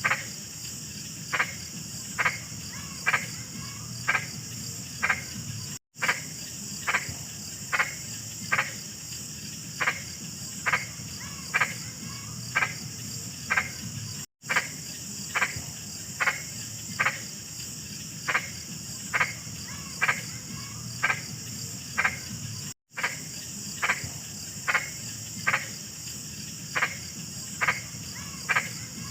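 A large frog croaking, short calls repeated about once a second, over a steady high-pitched drone of insects. The sound drops out to silence three times, briefly.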